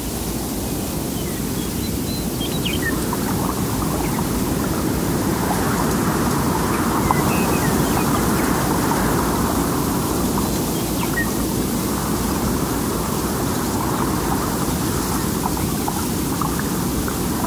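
Steady rushing outdoor noise of distant traffic and wind across open rice fields, with a few brief, thin bird chirps scattered through it.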